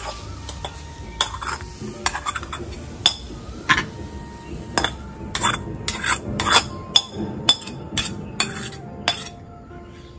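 A metal spoon scrapes and clinks against a small metal wok and a clay plate as cooked greens are scraped out and stirred. It is a quick run of sharp scrapes and clinks, densest about halfway through.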